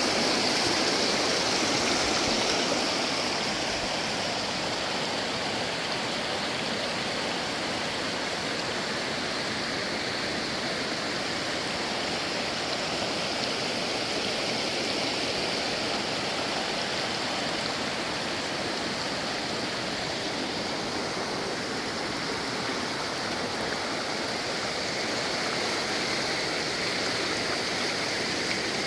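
Rushing water of a waterfall and its creek, a steady noise that is slightly louder in the first three seconds.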